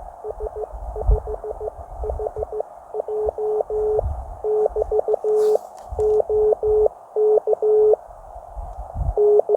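CW Morse code from a ham radio transceiver: a single steady tone keyed on and off in dots and dashes. There is a short break near the end before the keying resumes.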